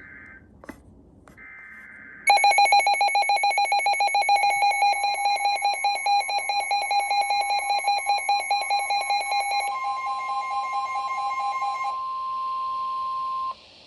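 Emergency Alert System signal on NOAA Weather Radio. It opens with brief bursts of digital header data, and from about two seconds in the loud two-tone attention signal sounds, with a warbling beat. Near the end the weather radio's single-pitch warning alarm tone takes over and cuts off abruptly, announcing a severe thunderstorm warning.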